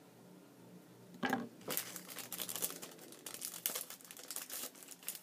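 Paper crinkling and rustling close to the microphone as a small printed card is handled, starting about a second in as a quick, irregular run of crackles.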